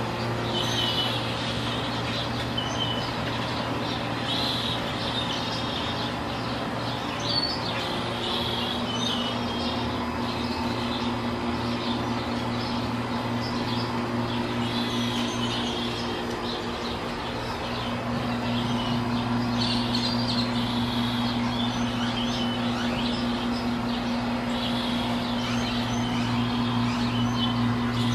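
Small birds chirping in short repeated bursts over a steady low mechanical hum that grows louder about two-thirds of the way in.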